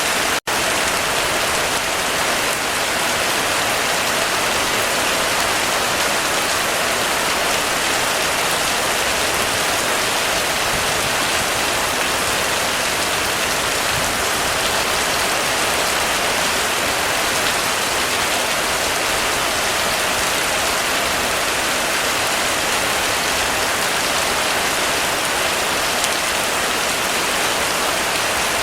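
Heavy rain falling steadily on a roof: a dense, even hiss. There is a split-second dropout about half a second in.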